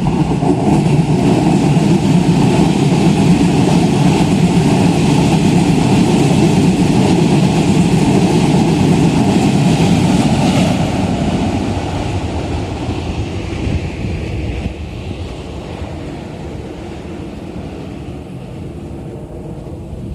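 Electric commuter train running past a level crossing: a loud steady rumble of wheels on rails for about eleven seconds, then fading away as the train moves off.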